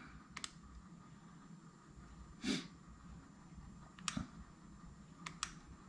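Quiet room tone with a few faint, short clicks as the gauge control button is pressed and held, and one short sniff about two and a half seconds in.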